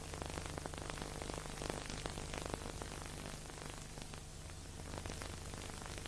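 Steady hiss and crackle of old-recording surface noise, dense with small clicks over a low steady hum.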